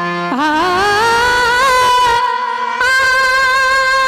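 A woman singing a Marathi devotional folk song into a microphone. She slides up into a long held note with vibrato, breaks off briefly a little past the middle, then holds a second long note.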